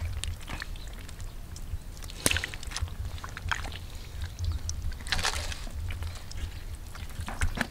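Wet squelching and splashing of hands working in shallow mud water as a snakehead fish is pulled out and gripped, with a few short sharp slaps, the loudest about two seconds in and again near five seconds.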